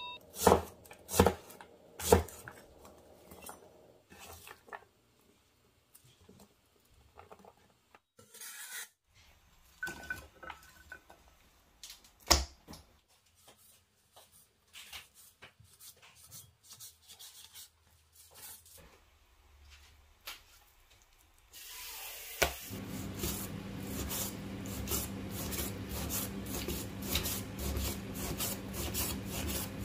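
Kitchen knife cutting through an onion on a wooden cutting board: a few sharp chops in the first two seconds, then scattered light taps. From about 22 seconds in, a cleaver slices raw beef thinly against the board in a quick, dense run of rasping strokes and taps.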